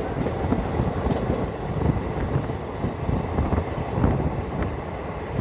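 DEMU (diesel-electric multiple unit) passenger train running along the track, heard from on board: a steady rumble with frequent short knocks and rattles.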